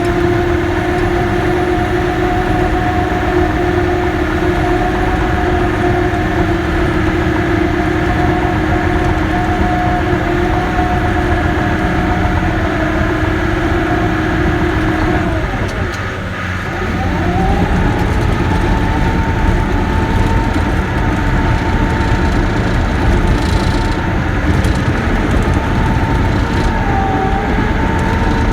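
Caterpillar D6K bulldozer's diesel engine running steadily while working. About halfway through, the engine note sags briefly and then climbs back to a higher, steady pitch.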